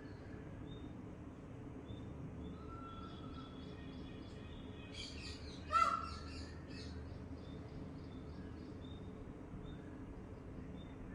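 Birds chirping, with short high chirps repeating throughout. A flurry of louder calls comes about halfway through, with one loud call at its peak, over a steady low background noise.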